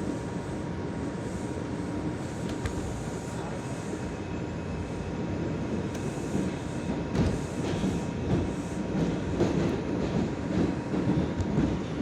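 R142 subway car running along the track, heard from inside the car: a steady rumble, with the wheels clicking over rail joints, louder and more often in the second half.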